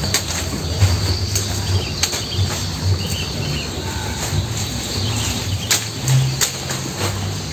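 Insects chirring steadily, with scattered sharp clicks and rustles of fresh-cut grass being handled and eaten by cattle at a feed trough, over an uneven low rumble.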